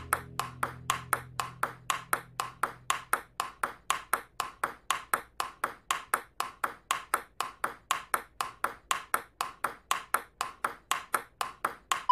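Table tennis ball clicking back and forth in a fast, perfectly even rally, about four hits a second.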